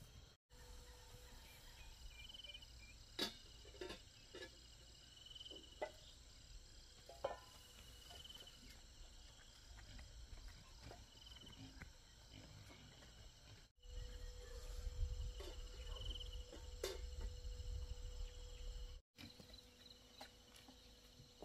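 Faint rural outdoor ambience with insects chirping: a short high trill repeats about every three seconds, with a few scattered clicks and taps. A low rumble comes in for several seconds in the middle, and the sound drops out briefly twice where the shots change.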